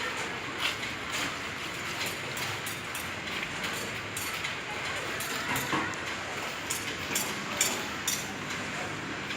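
Building-site work noise: a steady hiss with irregular sharp clinks and taps, a few close together near the end.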